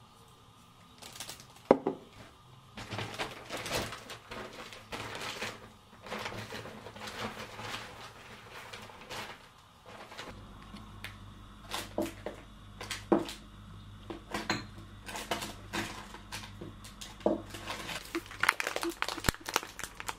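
Groceries being unpacked from a shopping bag: rustling of the bag and plastic packaging, with items clicking and knocking as they are set down on a kitchen counter, and one sharp knock about two seconds in. A low steady hum comes in about halfway.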